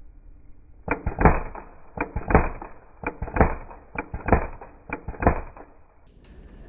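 Footsteps: five steps about a second apart, each a heavy thud with a scuff.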